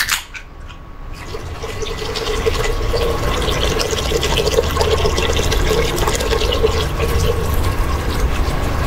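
An aluminium can of water is cracked open with a sharp click, then poured in a steady stream into a stainless steel Instant Pot inner pot of salted water. The pouring grows louder over the first couple of seconds and then holds steady.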